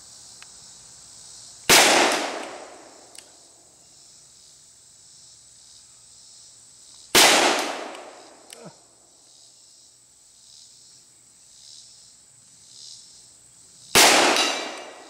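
Three shots from a Colt New Service revolver in .45 Colt, spaced about five to seven seconds apart, each a sharp bang followed by an echo rolling away over a second or so. A faint tick follows each of the first two shots about a second and a half later.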